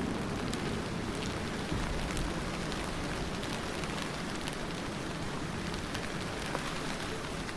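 Steady rain falling, a constant hiss with many individual drops ticking sharply on a hard surface.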